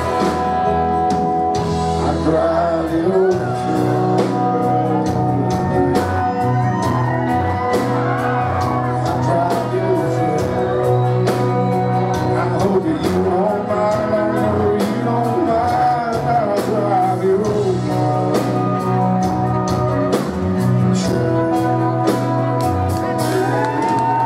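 Live country band playing loudly, with a male lead singer singing a wavering melody over acoustic guitar, electric guitars and keyboard, and a steady beat.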